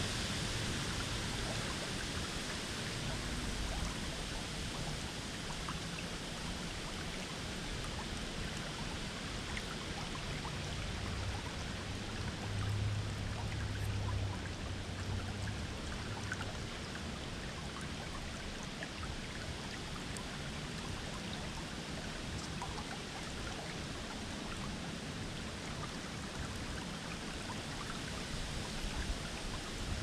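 Shallow babbling brook running over a stony bed: a steady rush of water with small splashes and gurgles. A brief low rumble comes in near the middle.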